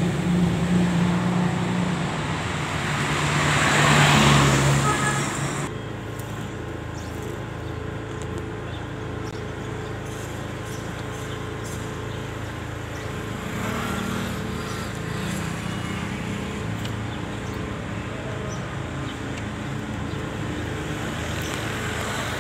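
Truck engine running with a deep steady hum that swells loudest about four seconds in. Then it cuts off abruptly to a quieter, steady hum of engine and street noise.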